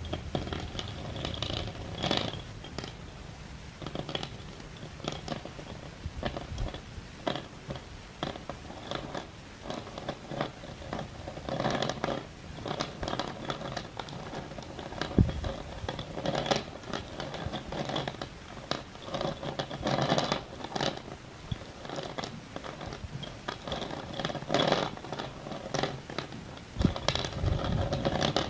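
Pieces of school chalk being bitten and chewed close to the microphone: irregular crisp crunches and crackles that come in clusters.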